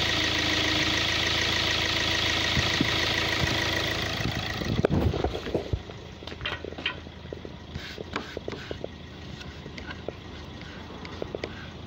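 Common-rail diesel engine idling steadily with a constant hum and hiss. About five seconds in comes a short rustling clatter, after which the engine sound drops much quieter, leaving scattered light clicks.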